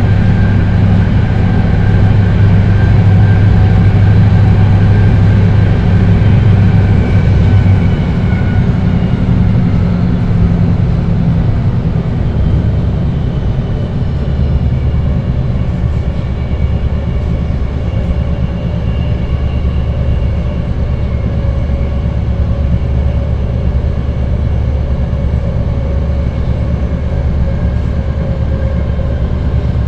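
BART 1972 Rohr B2 railcar running at speed between stations, with its Adtranz 1507C traction motors: a steady loud rumble of wheels and motors, with a faint whine from the propulsion. The whine slides down in pitch over the first several seconds, the low rumble shifts a little over halfway through, and a higher whine rises later.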